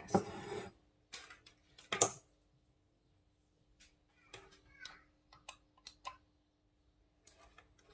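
Scattered light knocks and clicks of kitchen things being handled on a countertop, a glass mixing bowl being set down and an electric hand mixer being got ready. The loudest knock comes about two seconds in, and a faint steady hum runs behind.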